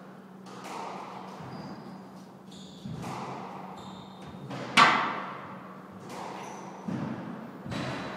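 Squash rally: the ball is struck by rackets and hits the court walls as a series of sharp impacts, the loudest about five seconds in. Between the hits, court shoes squeak briefly on the wooden floor.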